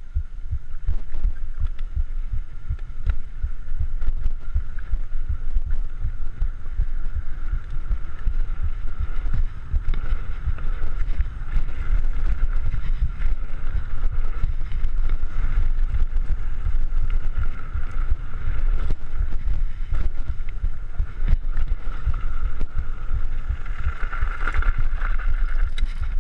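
Mountain bike ridden fast over a rough dirt and gravel track: wind buffeting on the microphone and the continuous rumble and jolting rattle of the tyres and bike over the ground, with a steady high whine underneath.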